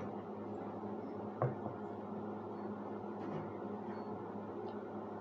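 Steady low electrical hum of room noise, with a single short knock about a second and a half in.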